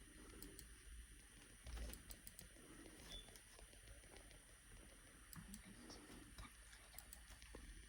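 Near silence with scattered faint clicks of a computer mouse.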